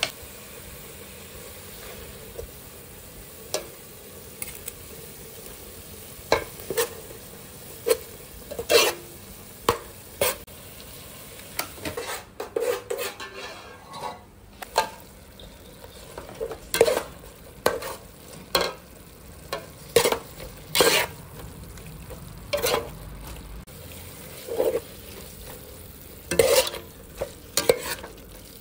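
Spice paste frying with a low, steady sizzle in a metal pot while a metal ladle stirs it, scraping and knocking against the pot every second or two; by the end, pieces of meat are being stirred through the paste.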